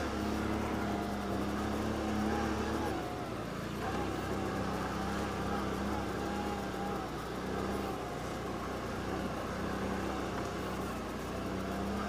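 2013 Can-Am Outlander 500 XT ATV's V-twin engine running under throttle along a rough dirt trail, easing back about three seconds in. Wind and tyre noise run underneath.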